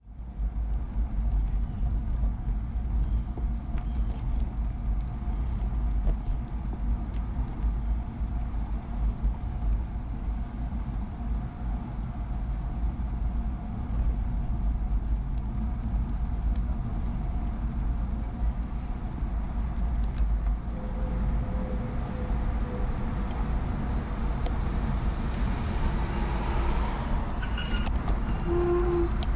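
Steady low wind rumble on the helmet or handlebar camera's microphone and road noise from a ride on an early-1970s Peugeot UJ-10 ten-speed bicycle. Near the end the noise swells and a few short steady tones sound.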